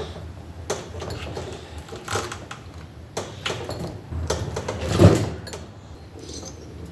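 Scattered clicks, knocks and rustling of vent hoses and small fittings being worked off a small engine by hand, with one louder thump about five seconds in.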